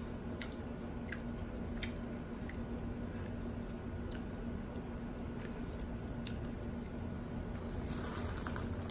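A person chewing food with the mouth closed, with sporadic wet mouth clicks, over a steady low hum.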